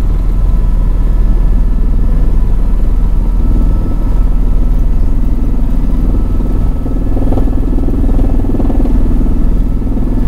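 Helicopter in flight, its engine and rotor making a loud, steady low rumble with a faint whine above it.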